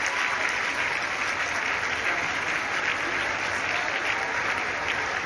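Large audience applauding: a steady, dense wash of clapping.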